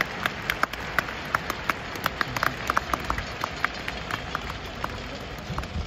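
Scattered hand clapping from a stadium crowd, sharp separate claps over a steady hum of crowd noise, thinning out after about three and a half seconds.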